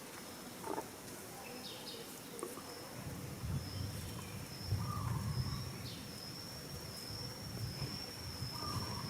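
Rural outdoor ambience: a steady high-pitched insect whine, a few short chirps, and low rumbling in the middle.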